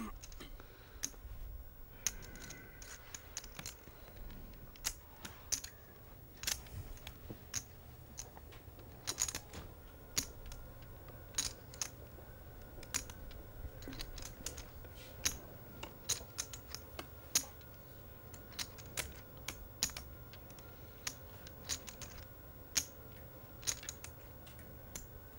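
Poker chips clicking against each other as a player handles them at the table: irregular sharp clicks, about one or two a second, over a faint low hum.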